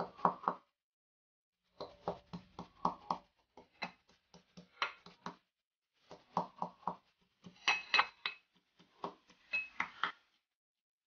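Metal pestle pounding garlic cloves in an aluminium bowl: sharp knocks about three to four a second, in runs with short pauses. A few strikes near the end make the bowl ring.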